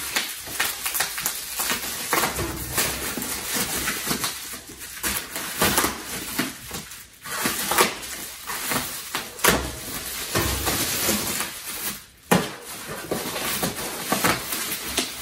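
Plastic packing wrap rustling and crinkling as it is pulled off a stack of laptops, with a knife scraping at packing tape and scattered clicks and knocks from handling. There is one sharper knock about twelve seconds in.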